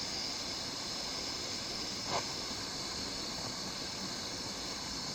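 Gas torch flame hissing steadily while it heats heavy-gauge wire for soldering, with a faint click about two seconds in.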